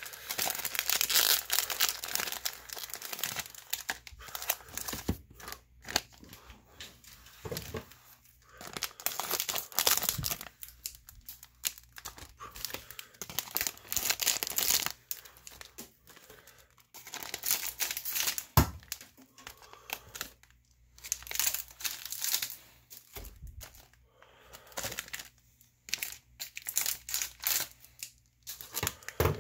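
Plastic wrapping of 2020 Bowman Chrome value packs crinkling and tearing as the card packs are pulled out, in irregular bursts with quieter gaps and a few sharp clicks.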